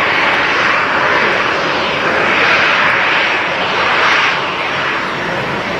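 The CFM56-7B turbofan engines of a Boeing 737-800 at low taxi thrust: a steady jet rush that swells slightly in the middle and eases a little near the end.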